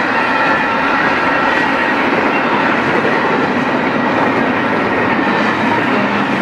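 Intermodal freight train's cars of double-stacked containers and trailers rolling past: a steady rumble and clatter of steel wheels on rail, with a few faint high steady tones over it.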